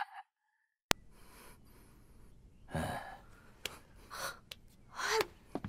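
A sharp click about a second in, then a person gasping and breathing sharply three or four times over faint room tone, with a couple of small clicks.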